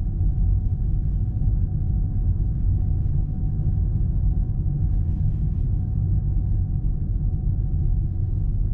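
Steady low road and tyre rumble of a 2022 Toyota Prius AWD-e on the move, with a faint steady whine above it.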